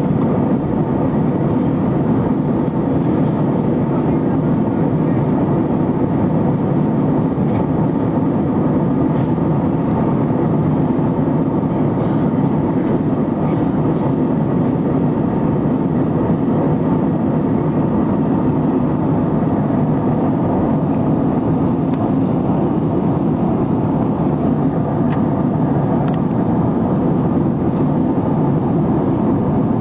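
Steady engine and airflow noise heard from inside the cabin of a jet airliner in flight, an even, unchanging low rumble with no rise or fall in level.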